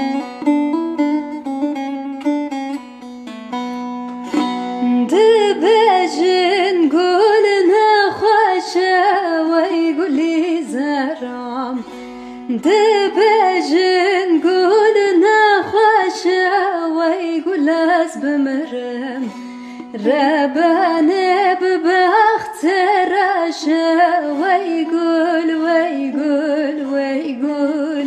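Background music: a plucked string instrument over a steady low drone, joined about five seconds in by a wavering, ornamented melody line.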